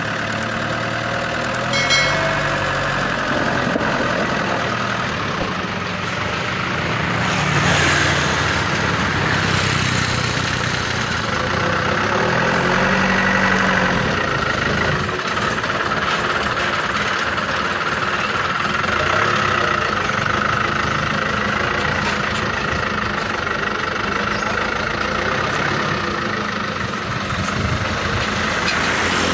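Mitsubishi light truck's engine running as the truck drives and reverses, its note rising and falling several times.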